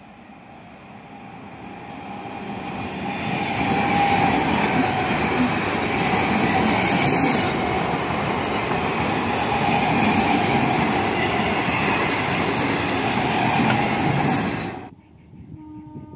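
Electric multiple-unit commuter train approaching round a curve and passing close by: wheels rumbling and clattering on the rails with a steady whine over the noise, growing louder over the first few seconds. The sound cuts off abruptly near the end.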